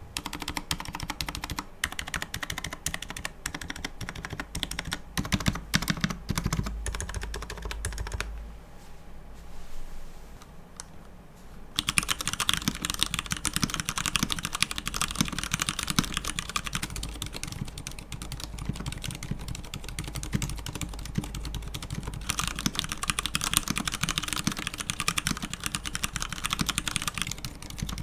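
Typing test on a Hansung TFG Art wireless mechanical keyboard with stock, unlubricated Cherry MX RGB switches: a fast, continuous run of keystrokes with hardly any case ping. The typing eases off about a third of the way in, then picks up again, denser and brighter, for the rest of the run.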